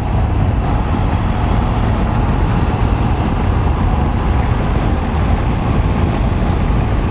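Motorcycle on the move: wind buffeting the rider's microphone over steady engine and road noise.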